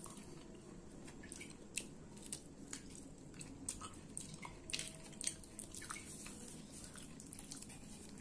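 Fingers squishing and mixing rice with mutton curry on a steel plate, with chewing and wet mouth sounds; quiet, irregular small clicks and squelches throughout.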